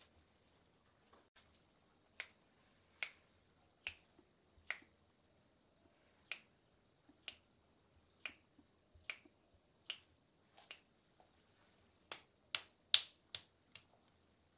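Sharp snapping clicks, one at a time about once a second and then faster near the end, as a masseuse pulls and snaps the client's toes and fingers one after another during a hand and foot massage.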